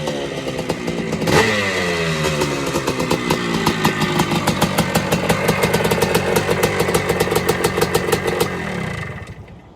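Honda CR250 two-stroke single-cylinder motorcycle engine revving down from high revs, with a sharp crack about a second and a half in. It then runs at low revs in a quick, even pulsing before the sound fades out near the end.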